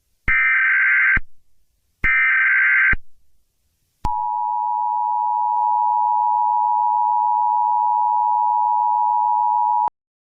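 Emergency Alert System broadcast signal: two buzzy, screeching bursts of the EAS/SAME digital header, each about a second long, then the steady, harsh two-tone EAS attention signal for about six seconds, cutting off abruptly. It marks the start of an emergency alert.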